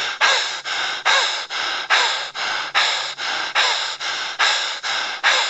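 A person breathing hard and fast in repeated pairs: a sharp, gasping breath followed by a softer one, about once a second, cutting off abruptly at the end.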